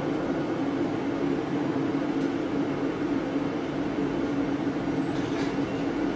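Laser engraving machine's ventilation running with a steady drone.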